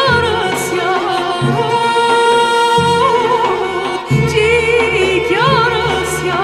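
A woman sings an Armenian folk song in ornamented, wavering runs, over an instrumental accompaniment with a steady low pulse. About halfway through she holds one long, even note before the ornaments return.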